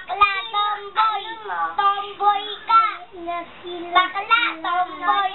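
A young child's voice singing loudly in a high, sliding sing-song, with short breaks between phrases.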